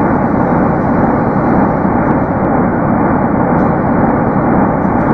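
Steady, dull rushing roar of noise with no tones in it, played as NASA's 'sound of space': radiation and stellar magnetic-field vibrations turned from electromagnetic waves into audio.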